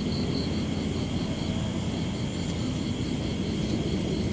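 A steady low rumbling noise, with an insect chirping in quick even pulses, about five or six a second, over it. The chirping fades somewhat after the first second and a half.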